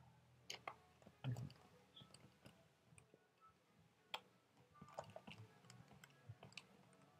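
Faint, scattered clicks and ticks, about one a second, of a small screwdriver driving the bezel screws and fingers handling the plastic screen bezel of a Chromebook at its hinge.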